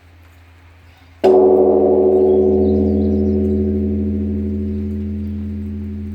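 Large Korean Buddhist temple bell struck once, about a second in, under the low hum of an earlier stroke. It rings on with a rich, wavering tone that fades slowly.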